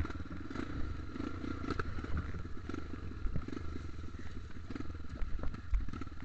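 Dirt bike engine running at low, steady speed on a rough, muddy trail, with frequent knocks and rattles as the bike bounces over the ground; one loud knock at the very start.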